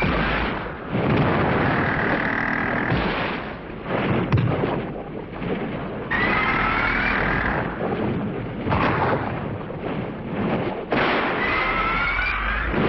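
Shrill kaiju monster cries from a 1970s tokusatsu soundtrack: a high, rising screech heard three times, with noisy fight sounds between and a sharp thud about four seconds in.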